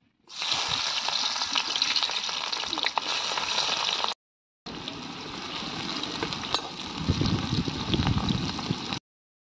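Sliced onions frying in hot oil in an iron kadai, a loud sizzle that starts suddenly as they hit the oil. Later a steel ladle stirs them, adding scraping strokes against the pan near the end.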